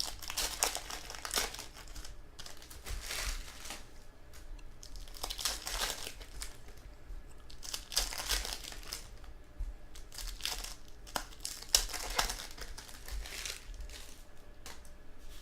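Contenders football card pack wrappers crinkling and tearing as packs are opened, in an uneven run of crackly rustles.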